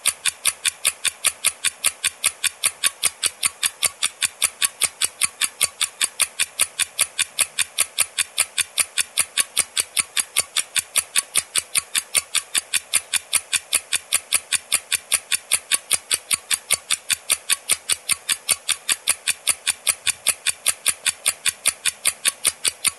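Clock-ticking sound effect: a steady, even tick about four times a second, serving as a countdown timer while a quiz question waits for answers.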